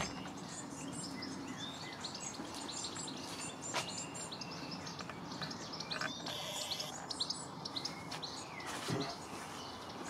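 Garden songbirds chirping and singing, several birds calling over one another in quick, short, high notes, over a steady faint background rumble, with a couple of soft knocks.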